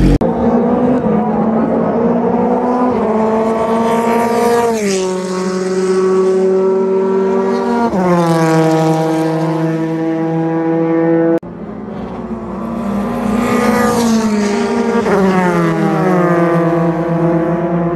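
JAF F4 formula car engines accelerating hard, the pitch climbing through each gear and dropping at every upshift. About two thirds of the way through, the sound cuts suddenly to another car doing the same.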